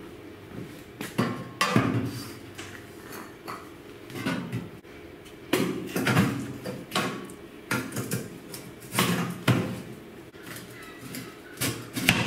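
Irregular metal clanks and knocks, about a dozen over the span, as a cut-open steel drum and a steel frame bar are shifted on a steel welding table and magnetic welding squares are set against them.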